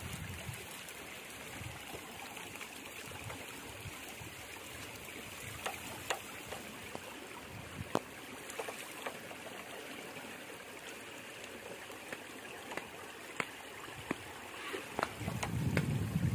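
Water trickling and splashing from a raised bamboo-framed lift net, with small fish flapping in the wet mesh. Scattered sharp splashes come through, and a low rumble rises near the end.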